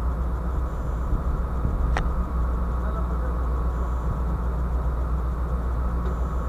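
Steady low drone of the ship's running machinery, with a faint steady whine above it and a single sharp click about two seconds in.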